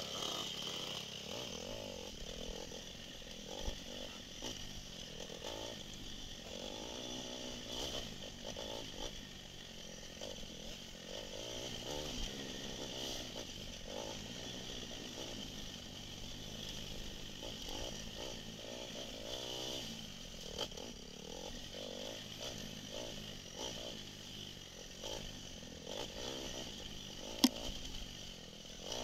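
Enduro dirt bike's engine revving up and down as it is ridden along a rough trail, the throttle opening and closing every second or two. One sharp knock near the end is the loudest moment.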